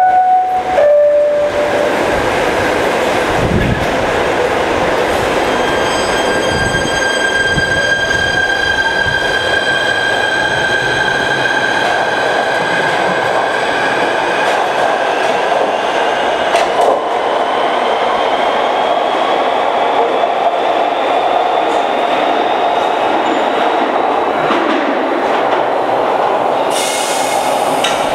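A PATH PA5 subway train's two-tone door chime alternating between two notes, then the train pulling out of the station: a steady electric motor whine that rises in pitch as it accelerates, over wheel rumble and clatter, easing off near the end.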